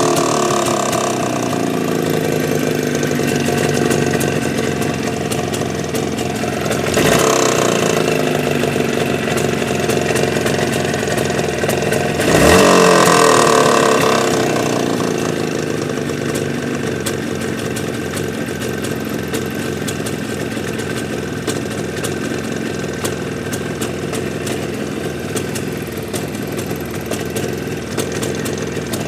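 Engine idling, blipped twice, about 7 and 12 seconds in, with pitch rising and falling back, then settling to a steady idle. The engine is being run to show a knock (стук) in it.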